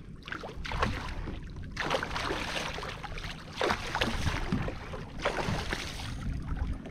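Hooked tarpon thrashing at the surface beside the kayak, throwing up a run of irregular splashes, the biggest about two, four and five seconds in.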